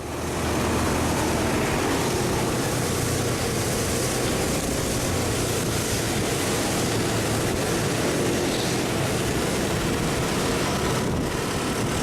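Motor scooter running on the road, its engine hum buried in steady wind and road noise on the microphone.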